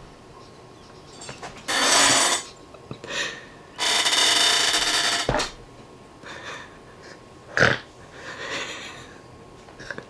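A man's stifled, breathy laughter into his hand: a short wheezing burst about two seconds in and a longer one about four seconds in, with softer breaths between.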